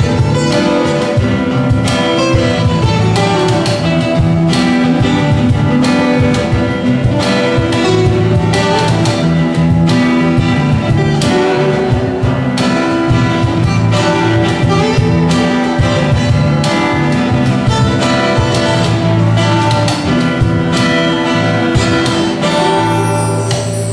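Small acoustic band playing: acoustic guitars strummed and picked over a bass guitar, with a steady beat of percussive hits.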